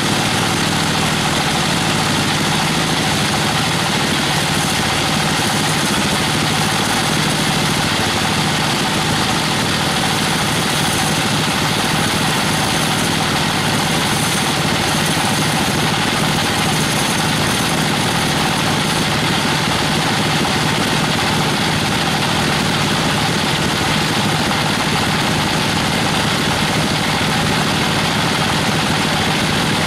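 Band sawmill running steadily, its blade sawing lengthwise through a log of weru (Albizia procera) wood.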